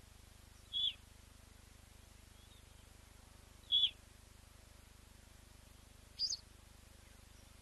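Three short, sharp bird calls a few seconds apart, the last one higher in pitch, over faint steady background noise.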